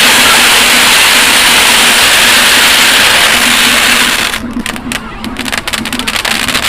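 Fireworks going off: a loud, steady hissing rush that drops off about four seconds in and gives way to rapid crackling.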